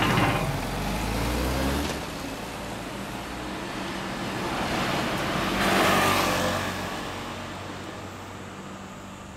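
Honda CBR1000RR Fireblade's inline-four engine accelerating away and fading into the distance. Another vehicle passes close by about six seconds in.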